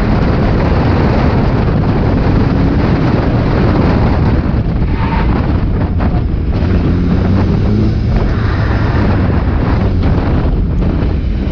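Mk4 Ford Fiesta stock car's engine running under heavy wind buffeting and road noise on the in-car microphone, with a few short knocks.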